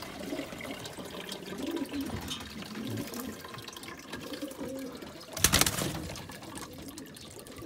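Tap water pouring from a plastic watering can into a plastic pigeon drinker, filling it. About five and a half seconds in comes a brief loud burst of noise.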